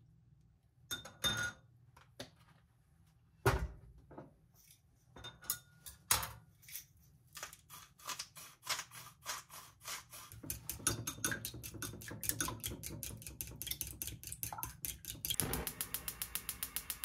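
Chopsticks beating raw eggs in a ceramic bowl, a fast steady clicking, after a few scattered taps and clinks. About fifteen seconds in, a gas hob's igniter starts clicking rapidly with a hiss as the burner lights under the frying pan.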